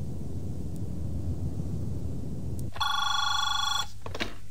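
A low rumble, then near the end a telephone rings once for about a second with a warbling ring, followed by a few clicks as the receiver is picked up.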